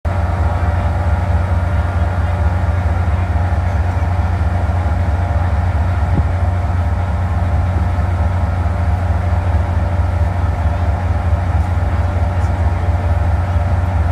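Caltrain MPI MP36PH-3C diesel locomotive idling while standing at the platform: a steady, loud, low engine drone with a constant hum that does not change.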